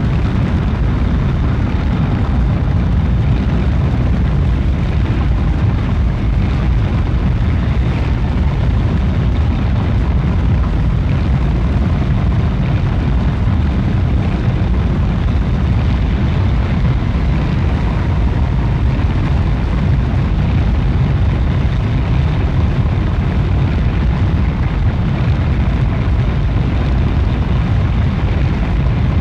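Experimental electronic drone recording: a dense, steady low rumble with a hissing wash above it, holding one level without breaks.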